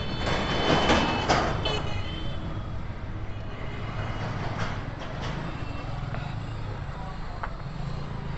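Vehicle engine running steadily with road noise, with a louder rush of noise about a second in.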